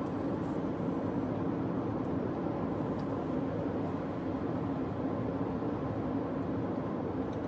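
Steady road and engine noise heard inside the cabin of a 2021 Toyota RAV4 driving along at a constant speed.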